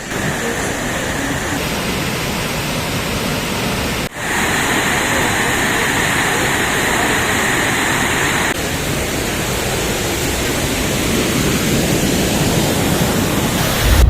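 Waterfall's water rushing, a loud steady noise with no tones. It changes character abruptly a few times, with a brief dip about four seconds in.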